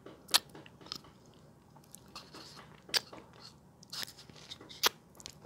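Wet mouth sounds of eating soft durian flesh: chewing, lip smacks and finger-licking, with a few sharp clicks spaced a second or more apart.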